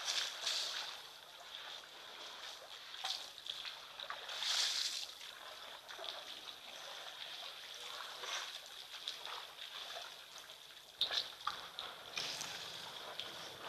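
African elephants drinking at a waterhole: irregular splashes of water as trunks dip in and lift out, over a steady high-pitched tone in the background.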